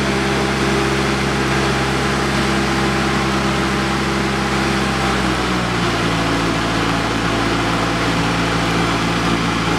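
Boatyard travel lift's engine running steadily while it holds a sailboat in its slings, settling to a slightly lower pitch about halfway through.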